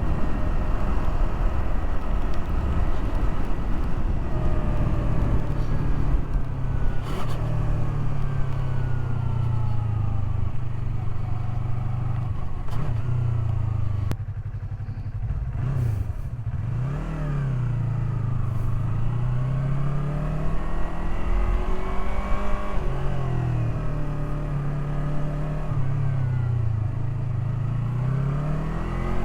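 Yamaha R3's parallel-twin engine under way, its pitch rising and falling several times as it pulls through the gears and eases off, briefly quieter about halfway through.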